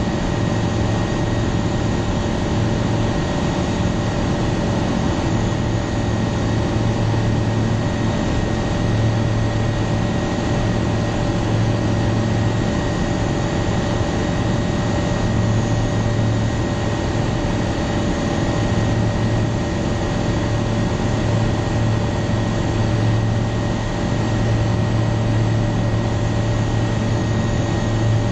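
Aeroprakt A22-LS Foxbat's engine and propeller running steadily in flight, heard from inside the cabin: an even drone with a low hum that swells and fades slightly.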